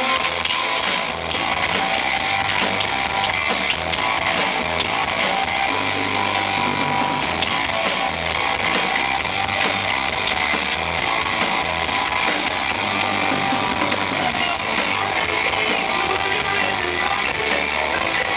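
Live rock band playing electric guitar, bass and drums, the recording heavily distorted and overloaded.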